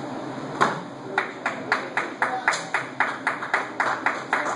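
A single sharp slap, then a quick, even run of sharp slaps at about four a second in a large gym hall.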